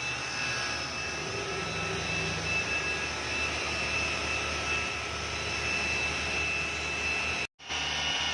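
Chevrolet Malibu engine running with a steady humming noise and a constant high whine over it. The mechanic diagnoses the noise as the timing chain. The sound cuts out for an instant near the end.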